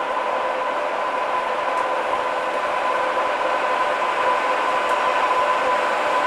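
Class 87 electric locomotive running slowly into the platform at the head of a passenger train: a steady whine over a noisy rumble, growing slightly louder as it comes closer.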